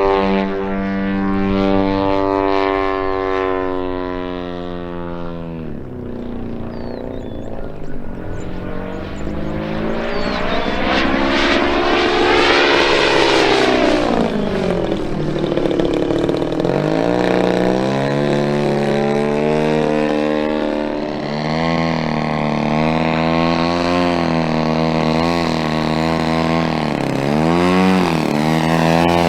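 Giant-scale RC Extreme Flight Yak 54's DA-120 twin-cylinder two-stroke gas engine and propeller in aerobatic flight. The pitch drops away about five seconds in, swells and falls again as the plane passes near the middle, and rises and dips quickly with throttle changes over the last several seconds.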